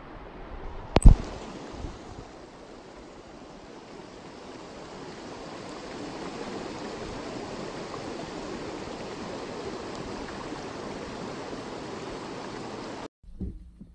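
A shallow mountain river, the Vorderrhein, rushing over a stony bed, its sound growing louder about halfway through. A single sharp knock comes about a second in. The water sound cuts off suddenly near the end.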